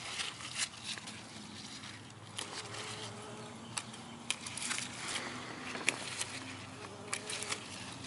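A flying insect buzzing as a low, slightly wavering drone, with scattered sharp clicks and crackles over it.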